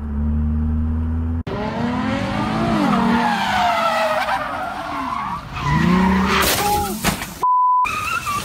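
A car's tyres squealing in long, wavering, rising and falling screeches as it slides and spins, after a short stretch of steady engine and road drone heard from inside a car. Near the end a short, pure censor beep cuts in.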